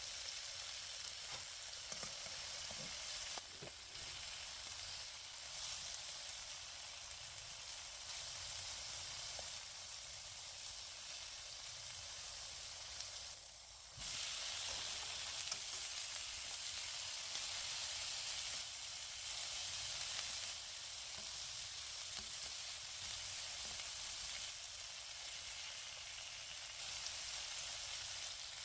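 Food sizzling as it fries in cooking oil in a frying pan, a steady hiss. It drops briefly about halfway through, then comes back louder.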